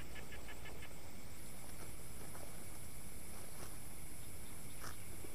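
Night insect chorus in the rice fields: a steady high-pitched trill comes in about a second in over a short run of rapid chirps at the start, with a faint click near the end.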